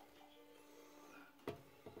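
Near silence: a faint steady hum, with a light knock about one and a half seconds in and a smaller one just before the end.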